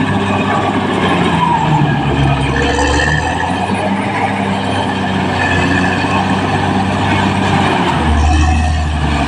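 Caterpillar D6R XL bulldozer's diesel engine running under load, its note rising and falling as the machine works.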